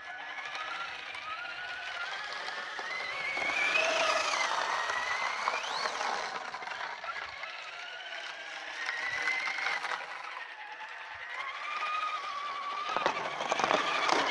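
Traxxas Slash RC truck's electric motor whining, its pitch rising and falling with the throttle as it drives, louder and noisier near the end as the truck comes close.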